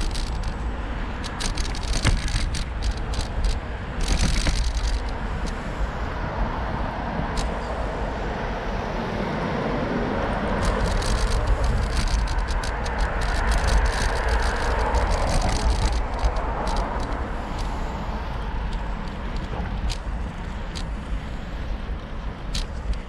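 Riding a bicycle on a city road: wind rumbling on the microphone, frequent rattling clicks from the bike, and traffic that swells and fades around the middle.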